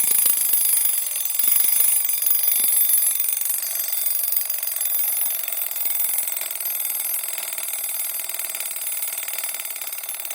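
Vityaz mechanical alarm clock ringing: its hammer rattles rapidly against the bell. The ringing starts suddenly and slowly weakens over about ten seconds.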